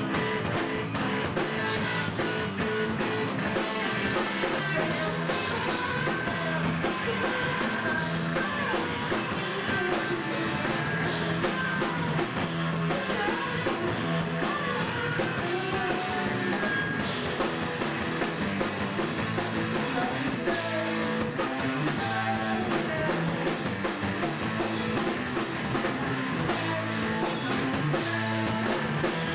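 A loud rock band playing live: electric guitar, bass guitar and drum kit, with a singer on the microphone.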